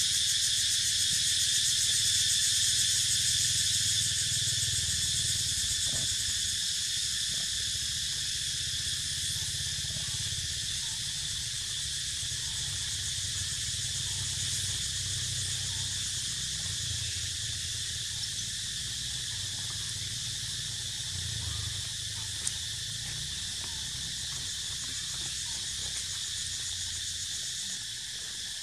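Steady insect chorus, a dense high-pitched buzz that holds level throughout, with a low rumble underneath.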